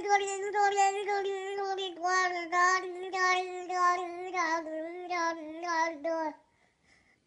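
A baby babbling in a sing-song voice held on nearly one note, chopped into short syllables, stopping about six seconds in.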